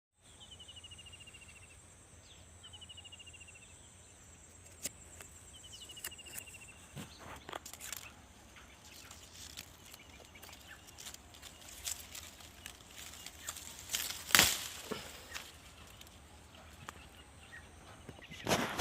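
Outdoor ambience: a bird gives three short, falling trills of rapid notes in the first seven seconds over a steady high thin tone. Scattered sharp clicks and knocks follow, the loudest about 14 seconds in and another near the end.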